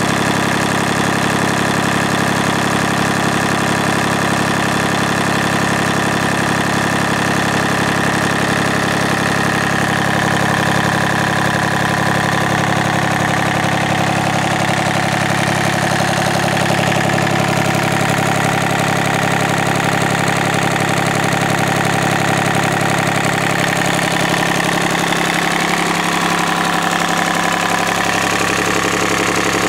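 Yanmar 3TNV84 three-cylinder diesel engine running at a steady speed.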